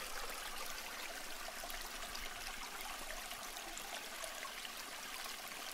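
Steady hiss with faint scattered ticks, sounding like running water.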